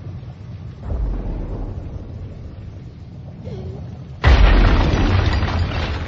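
Animated-film sound effects of destruction: a low rumble with a swell about a second in, then a sudden heavy boom about four seconds in that dies away slowly.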